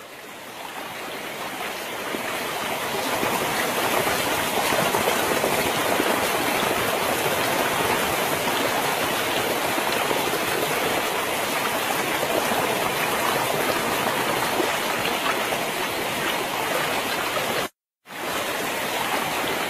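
Floodwater rushing steadily across a road, a constant even rushing noise that drops out for a moment near the end and then resumes.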